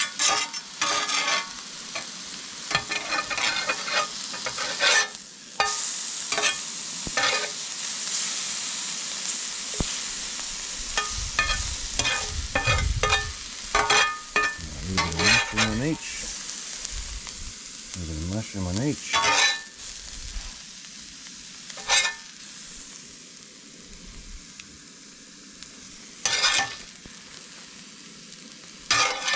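Spam frying in a pan, sizzling steadily, with frequent clicks and scrapes of a utensil against the pan as it is turned. The sizzle softens after about twenty seconds.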